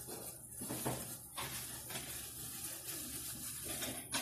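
Rustling of cloth napkins and plastic-gloved hands being handled and folded, with a few soft knocks.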